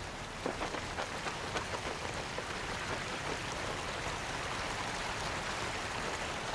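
Water rushing through the spillway gates of a river dam: a steady rush of churning water, with a few sharp ticks over the first two seconds.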